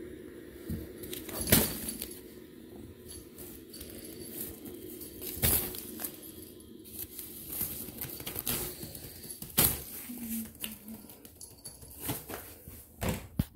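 Fabric cat tunnel rustling and bumping as a Bengal cat scrambles and pounces in and around it, with a few sharp swipes and thumps over a steady low hum.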